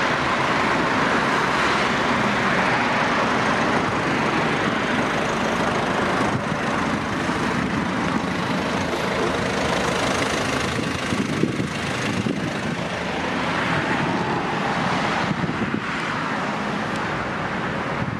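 Steady outdoor road-traffic noise with wind on the microphone.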